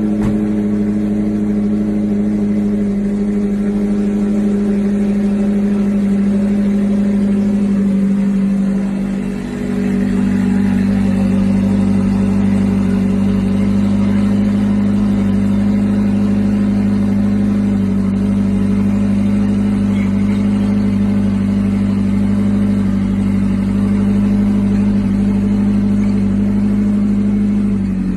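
McLaren supercar engine idling with a steady, even drone that dips briefly about nine seconds in.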